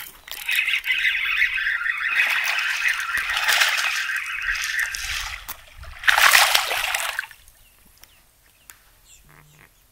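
A hooked largemouth bass thrashing and splashing at the water's surface. There is a long run of splashing, then a shorter second burst about six seconds in as the fish is lifted from the water.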